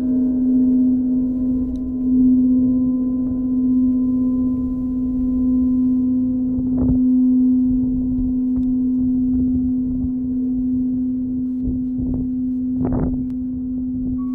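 A gong sounding one deep, steady humming tone with fainter higher overtones, held without dying away. A few soft knocks come about halfway and near the end.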